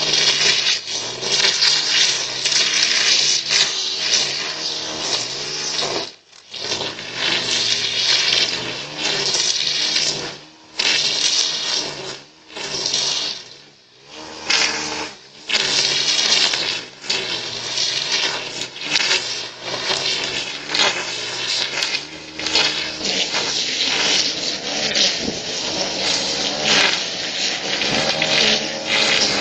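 Leaf blower running hard, its motor revved up and let off in bursts of a few seconds with brief drops between, with a strong rush of air.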